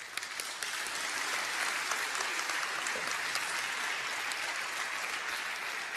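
An audience applauding, building up at the start and then holding steady.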